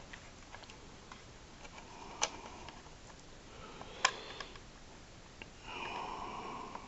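Faint handling of a hard plastic toy spaceship: fingers working at a part on its underside, with a few sharp plastic clicks, one a little after two seconds and one about four seconds in, and a short rubbing sound near the end.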